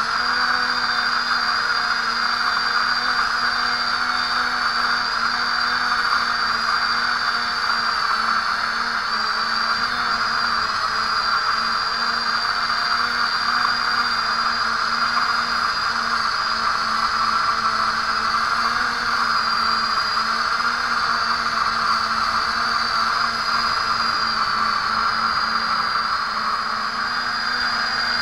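Brushless motors and propellers of a small DIY foam-frame quadcopter in steady flight, whirring with a constant hum and a high whine, heard through the drone's onboard camera microphone.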